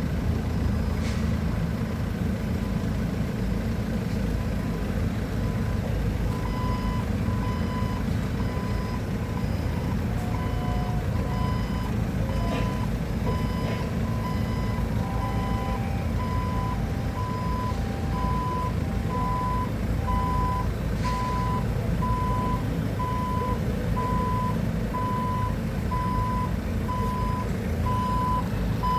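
Heavy-equipment diesel engine running steadily. From about six seconds in, a reversing alarm beeps about once a second, and a second, lower-pitched beep joins for a while in the middle.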